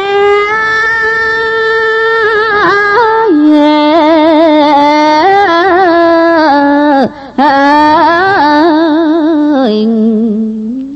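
Khmer smot, Buddhist chanted poetry: a single voice sings long held notes, ornamented with a wavering pitch, stepping lower through the phrase, with a short breath about seven seconds in.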